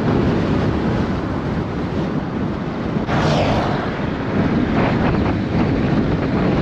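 Wind and road noise from a moving car, with a brief whoosh about three seconds in.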